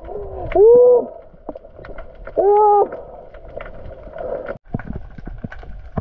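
Heard underwater: two short hooting voice sounds, muffled by the water, each rising and falling in pitch, about half a second in and again around two and a half seconds, over faint clicking and crackling.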